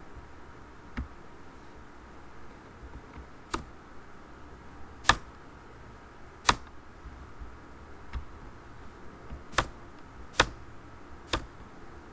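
About seven sharp, single clicks of a computer mouse and keyboard, spaced irregularly, over a faint steady background hiss.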